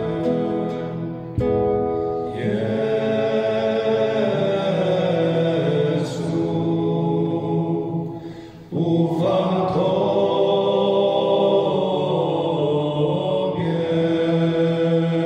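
Group of men's voices singing a slow, chant-like Catholic worship song together, in two long phrases with a short breath between them.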